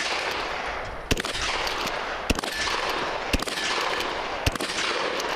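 Pump-action shotgun firing four shots about a second apart at steel knock-down targets, each shot followed by a long echoing tail.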